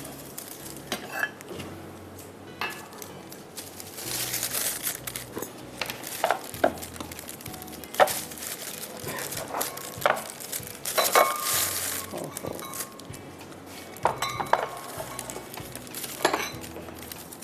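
Glass dessert cups and utensils clinking and knocking on a countertop as they are handled and set out, in scattered sharp clinks, a few ringing briefly, with some rustling in between.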